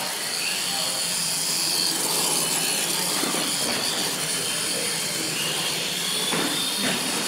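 R/C monster trucks' electric motors and geartrains whining at full speed across a concrete floor. The whine rises in pitch near the end.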